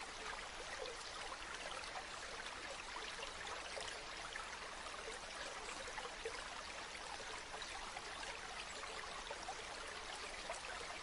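Stream water running steadily, an even rushing with small splashes and trickles throughout.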